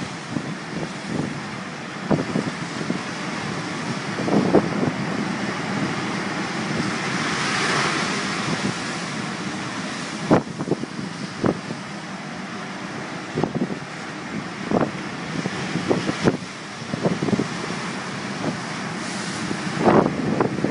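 Strong wind blowing over the microphone, with the wash of breaking sea waves underneath. Irregular short thumps of wind buffeting come through, and a stronger gust swells about eight seconds in.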